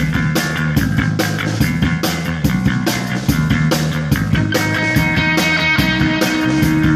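Rock band playing live, with drums and cymbals keeping a steady beat of about four hits a second under guitars. A long held note comes in about four seconds in.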